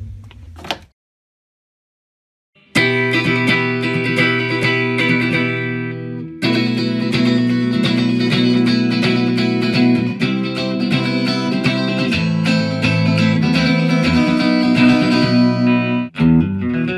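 Morris Hurricane Stratocaster-style electric guitar played through an amplifier: sustained chords and picked notes that start about three seconds in after a stretch of silence, with a brief gap a few seconds later and another short break near the end.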